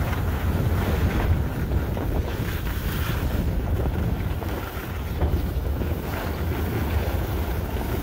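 Wind buffeting the microphone of a camera carried by a skier on the move, a steady low rumble, with the hiss of skis sliding over packed snow.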